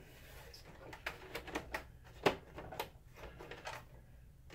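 Scattered plastic clicks and knocks as a Mitsubishi WD720 projector's lamp cover is set back on and the housing is handled, with one sharper knock a little past two seconds in.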